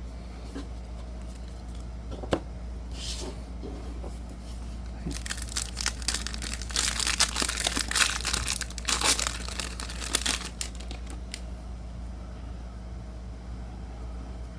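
Foil wrapper of a baseball-card pack crinkling and tearing as it is ripped open, with several seconds of dense crackling in the middle. A single sharp click comes shortly before it.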